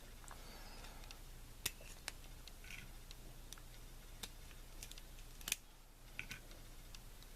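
Small metal lock parts clicking and ticking as springs and driver pins are loaded into a 5-pin lock: a handful of short, sharp clicks at irregular intervals, the loudest about five and a half seconds in.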